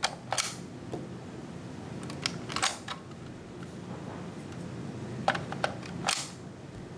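A metal AK magazine clacking into an airsoft AK's magwell, fitted with a magwell spacer, and latching, with sharp metallic clicks in three quick clusters: near the start, about two and a half seconds in, and near the end.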